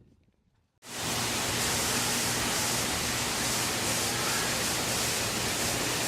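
Heavy rain falling, a steady even hiss that cuts in abruptly about a second in.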